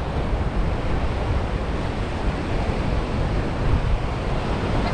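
Ocean surf breaking on a sandy beach, a steady wash of noise, with wind rumbling on the microphone.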